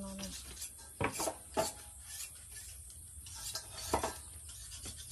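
Knife blade scraping and cutting the skin off a root tuber: a series of short, rasping strokes, the sharpest just after a second in and again near four seconds.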